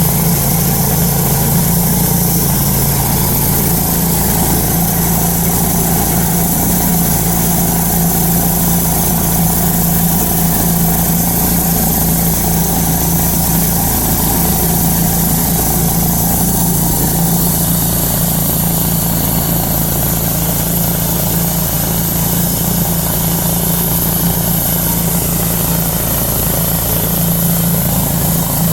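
Woodmizer LT-10 bandsaw mill's gas engine running steadily at constant speed, driving the band blade, with an even, unbroken hum.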